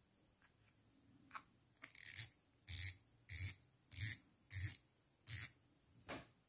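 Drag knob of a Shimano spinning reel being screwed back down onto the spool, giving five short bursts of rapid clicking about two-thirds of a second apart, one for each twist of the knob, then a weaker one.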